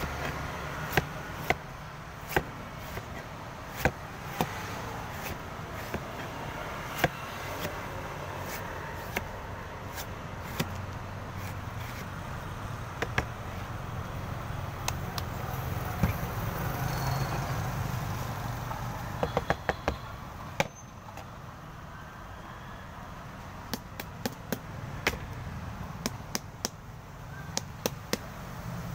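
Cleaver chopping the green husk off a young coconut: irregular sharp chops and knocks, with a quick run of several strokes about two-thirds of the way in, over a steady low hum.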